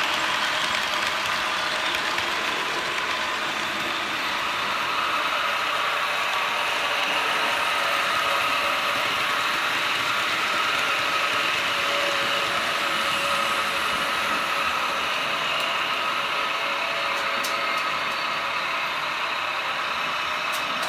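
Märklin HO scale model trains running along the layout's three-rail metal track: a steady rolling whir of wheels and motors, with a faint steady whine through it.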